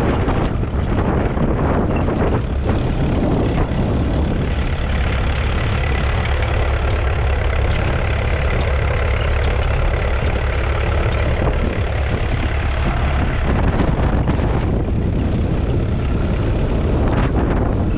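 1959 McCormick International B275's 2.3-litre four-cylinder diesel engine running steadily, a loud low rumble.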